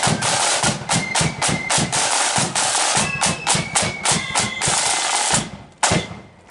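A marching flute band plays a tune, with high flute notes over rattling side drums and a booming bass drum. The playing stops a little after five seconds, and one last loud strike follows just before six seconds.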